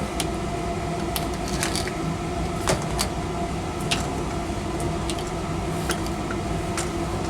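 Scattered light clicks and knocks from the washing machine's supply hoses and metal fittings being handled, about eight or nine in all, the strongest around the middle. Under them runs a steady mechanical hum.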